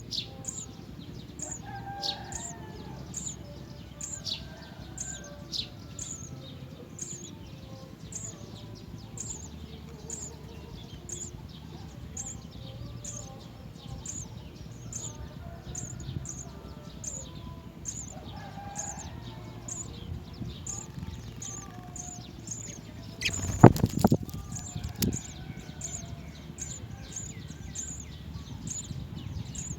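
At a house sparrow nest, a faint high ticking or chirping repeats about twice a second throughout. About three-quarters of the way in comes a brief loud burst of wing flapping with a few sharp knocks, the loudest sound here.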